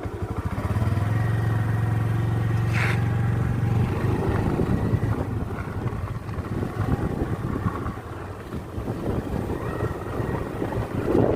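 Small motorcycle engine running, with a steady low drone for the first few seconds that then turns rougher and uneven.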